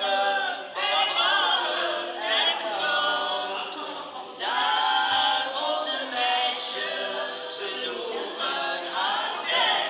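Four women singing a song together in unison, with a short break a little over four seconds in.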